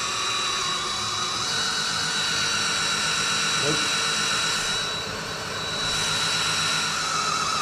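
Right-angle (90-degree) drill running steadily, spinning a dry-sump oil pump to prime a race engine's oiling system. Its motor whine rises slightly in pitch about a second and a half in and eases down near the end.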